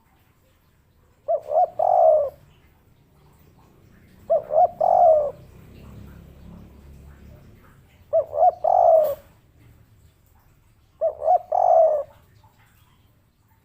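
Spotted dove cooing its three-note 'kuk 3' call: four phrases about three seconds apart, each two short coos followed by a longer one.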